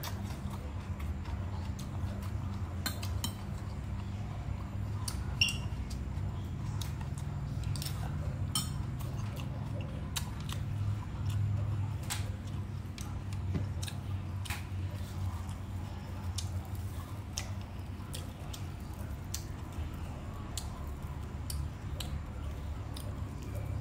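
Close-miked chewing of raw water chives, with scattered light clicks over a steady low hum.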